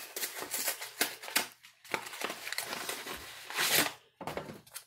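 Crinkling and rustling of a plastic MRE meal bag and the pouches inside it as a hand rummages through, with a louder rustle a little before the end.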